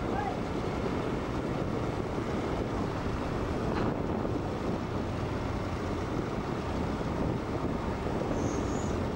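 Steady low rumble of ship and crane machinery at work, mixed with wind on the microphone.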